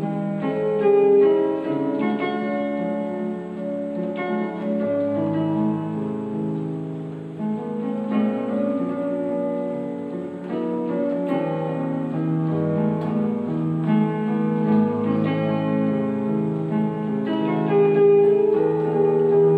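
Electronic keyboard played with both hands, a flowing melody over longer held low notes.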